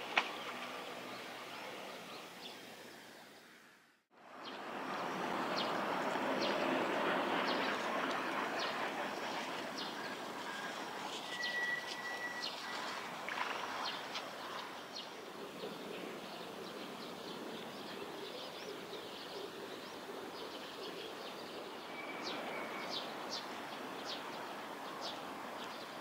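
Outdoor riverside ambience that fades out about four seconds in and returns as a steady rushing background, with short, high bird chirps scattered throughout and more frequent near the end.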